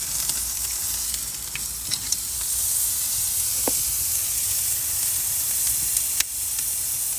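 Bone-in ribeye steak, just flipped, sizzling on the grill grate over hot charcoal, with a steady hiss and a few faint crackles and pops.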